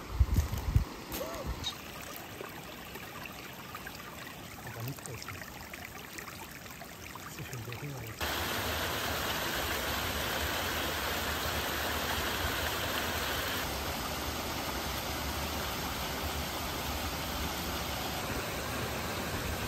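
Small mountain stream running over rocks, a steady rush of water that gets louder and fuller about eight seconds in. A few low thumps near the start.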